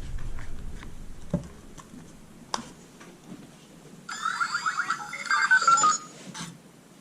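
Spin Master Boxer robot toy playing a short burst of electronic beeping and warbling through its newly fitted 8-ohm speaker. It starts about four seconds in and lasts about two seconds, after a few faint clicks.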